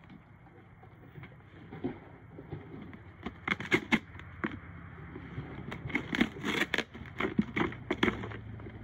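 A husky tearing and chewing apart a cardboard box, with sharp cardboard rips and crunches in a burst about three seconds in and again from about six to eight seconds.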